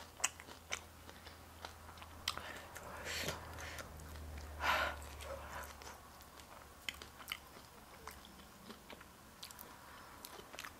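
Faint close-miked mouth sounds: scattered wet clicks of lips and tongue, with two short hissing breaths through the mouth about three and five seconds in, from a mouth burning from very hot chicken wings.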